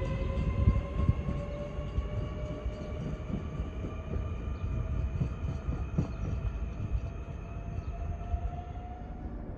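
SJ X2000 electric train pulling away and speeding up: a motor whine that rises slowly in pitch and fades out near the end, over a low rumble of wheels on rail with scattered clicks.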